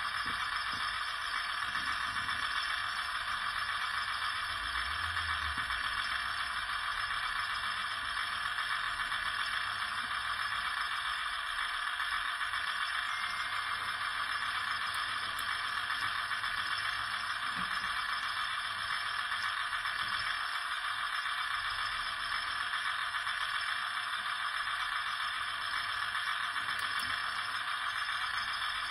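The small electric drive motors in an H0-scale Robel track vehicle model whir steadily while its crane arm slews and folds.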